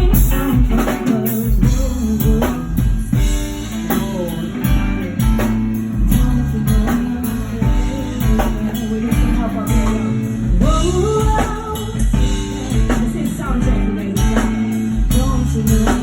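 Band music playing: a drum kit beating steadily under bass and guitar, with a voice singing over it.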